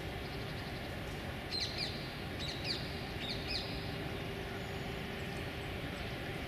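A small bird chirps in three quick groups of two sweeping notes, starting about a second and a half in, over the steady low rumble of distant city traffic.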